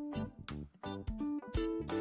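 Instrumental background music: a tune of plucked notes played in a steady rhythm.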